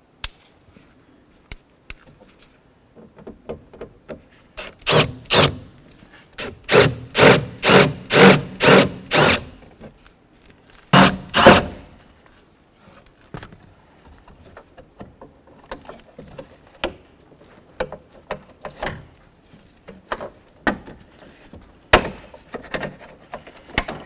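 Drill bit grinding through the heads of the rivets that hold the interior door handle bracket to the steel door, in about a dozen short bursts starting about five seconds in and stopping about halfway through. Light clicks and knocks follow.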